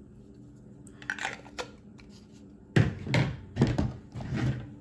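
Handling noise of a knife and its hard plastic sheath being put away: a few faint clicks about a second in, then a run of loud knocks and rattles from about three seconds in.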